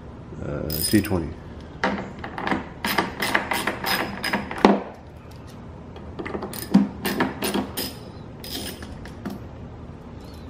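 A ratcheting driver clicking in two quick runs as it backs out the T20 Torx screws that hold the xenon ballast to a BMW E90 headlight housing.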